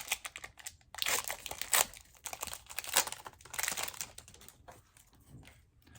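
Foil wrapper of a Pokémon booster pack crinkling in several short bursts as the cards are slid out of the freshly opened pack.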